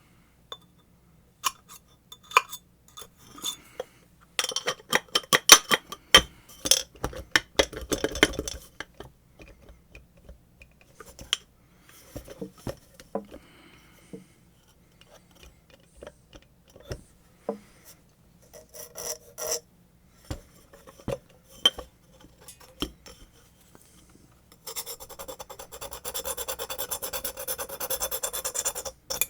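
Hand tools and metal parts of a submersible water pump clicking, scraping and rasping as the pump is taken apart. A burst of rapid scraping strokes comes a few seconds in, and a steady rasping sound starts near the end.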